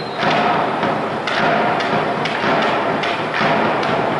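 Crowd noise in a sports hall with repeated sharp thuds, about two to three a second, unevenly spaced.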